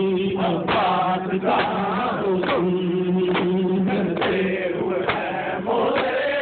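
A crowd of men chanting a mourning lament in unison, with hands striking bare chests in time about once a second. This is the matam of Shia mourners at Ashura.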